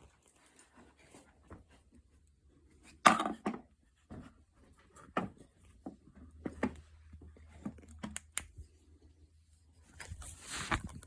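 Irregular knocks, bumps and scrapes in a small room. The loudest knock comes about three seconds in, and a longer scraping rustle follows near the end.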